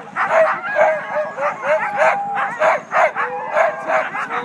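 A harnessed team of Siberian huskies barking, yipping and howling all at once while held at the start line, several dogs overlapping in a dense chorus of quick barks with a few drawn-out howls. It is the excited noise of sled dogs waiting to be let go.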